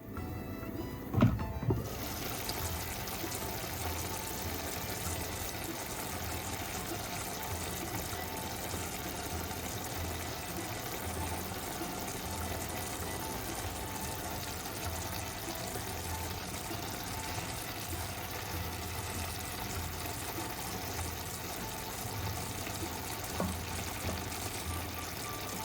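A pot of vegetable stew bubbling steadily as it simmers, with one knock about a second in.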